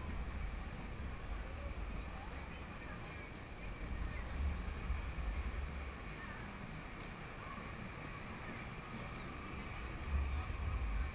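Outdoor street ambience dominated by wind buffeting the microphone, a low rumble that swells in gusts at the start, about four seconds in and near the end. A faint steady high-pitched hum runs underneath.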